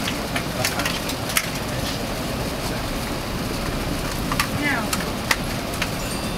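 Steady cabin noise of an Airbus A380 taxiing on the ground after landing, with scattered sharp clicks and faint passenger voices in the background.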